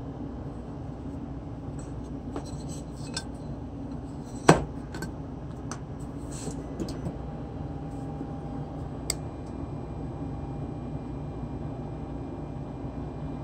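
Heat gun running with a steady fan hum while heat-forming a 3D-printed plastic air ram on a hub motor cover. Scattered light clinks and taps, with one sharp knock about four and a half seconds in.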